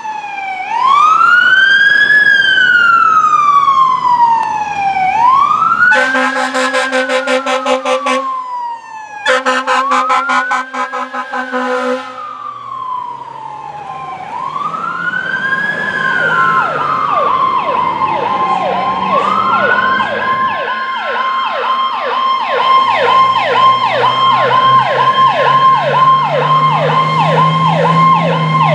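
Fire-engine electronic sirens (Whelen Powercall) responding: a wail rising and falling slowly, cut by two long horn blasts about six and ten seconds in. From about halfway a second siren adds a fast yelp over the wail, and a truck engine's drone grows louder near the end.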